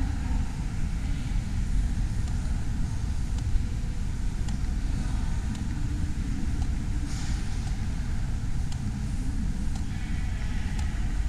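Steady low rumble of background noise in a large, nearly empty airport terminal hall, with a few faint ticks here and there.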